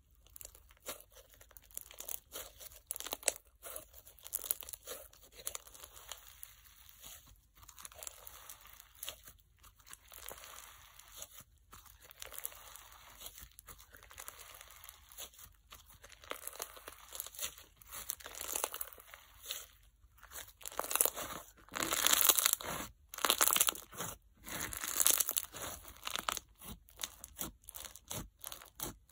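Crunch slime packed with bingsu beads and microbeads being squeezed, pressed and stretched by hand, giving a sizzling, popping crackle in irregular bursts. The crackling grows louder and denser in the last third.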